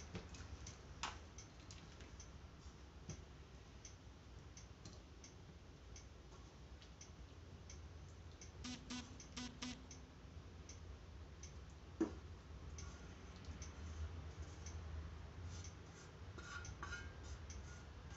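Faint scattered clicks and taps of a spoon against a wok and a serving bowl as cooked squid is scooped out, with a short cluster of clicks around the middle and one sharper knock a little after.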